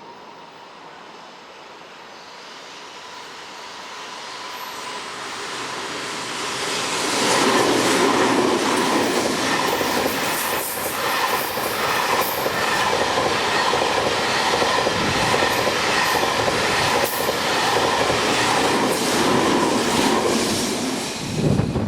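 Electric-locomotive-hauled freight train approaching, then passing close by with a long run of wagons, its wheels clattering over the rail joints.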